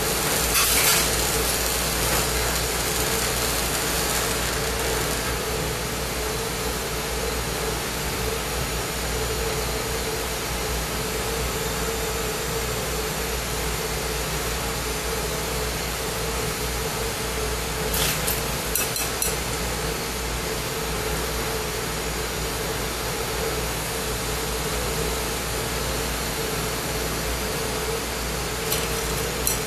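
Steady hiss of a lampworking bench torch's propane flame, with a steady hum under it. A few light clicks come about a second in, after about 18 seconds and near the end.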